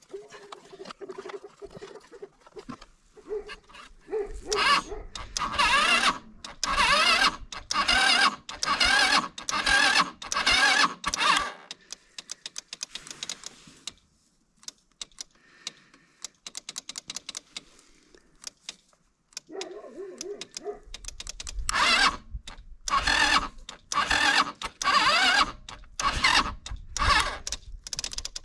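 Animals calling in two spells of loud, repeated calls with a quieter stretch between.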